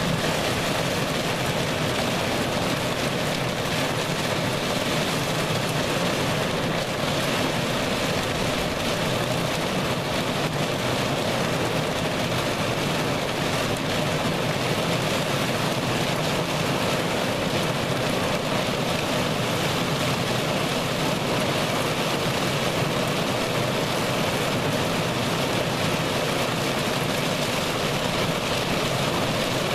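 Heavy wind-driven thunderstorm rain beating steadily on a car, heard from inside the cabin as a loud, even rush of noise.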